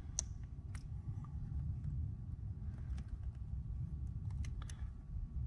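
A handful of small, sharp metal clicks from needle-nose pliers working a spring hose clamp on a rubber hose, over a steady low background rumble.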